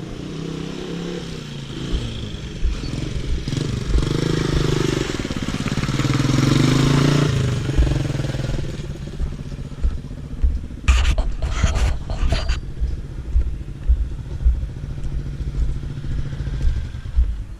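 Honda CG 125 single-cylinder four-stroke motorcycle engine passing under a test ride, its pitch rising and falling as it is revved through the gears and loudest a few seconds in. The mechanic afterwards judges the bike's fifth gear to be worn. A few sharp clacks come near the middle, with a low rumble underneath.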